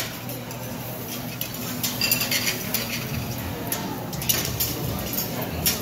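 Metal tongs and kitchen scissors clicking and clinking against a stainless-steel tabletop barbecue grill as grilled steak is snipped into pieces. The clicks come in scattered clusters over a steady low background hum.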